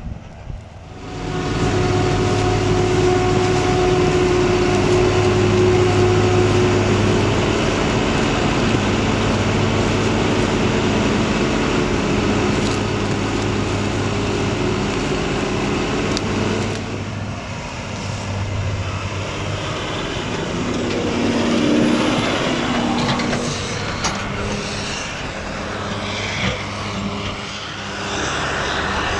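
Heavy diesel farm machinery working a maize silage harvest. A steady engine drone comes in about a second in and runs loud and even, then changes abruptly about seventeen seconds in to a quieter, more uneven machine sound.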